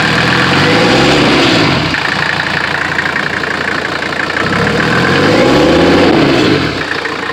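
Mercedes-Benz W123 300D's OM617 five-cylinder turbodiesel running, revved up and let fall back twice: once about a second in and again about five seconds in.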